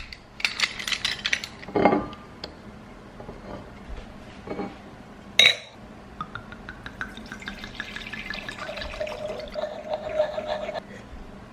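Liquid being poured into a glass, the pitch rising slowly as it fills, after a few clinks and a sharp knock of glass or dishes.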